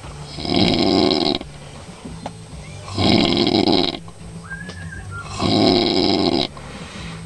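A man snoring in deep sleep: three loud, rasping snores, each about a second long, coming about every two and a half seconds.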